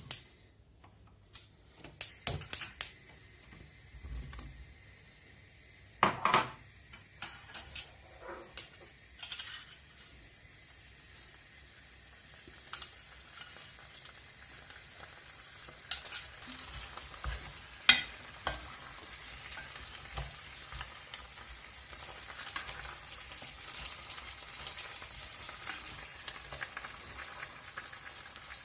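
Chunks of raw potato tipped from a glass bowl into a pot, with a cluster of clatters and knocks in the first ten seconds, then occasional knocks of a wooden spoon stirring the vegetables. A soft frying sizzle from the pot on low heat grows steadier through the second half.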